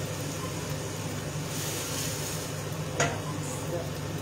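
Wooden spoon stirring Venere black rice in a frying pan just moistened with bisque, the liquid sizzling, with a brief stronger hiss about a second and a half in. A sharp knock on the pan about three seconds in, over a steady low hum.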